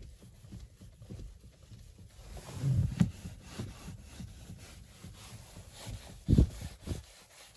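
Dull knocks from the front left of a Volkswagen Polo sedan's suspension or steering, fainter ones throughout and two louder thumps, about three seconds in and again past six seconds. The owner suspects worn anti-roll bar links, though he allows it could be the steering rack.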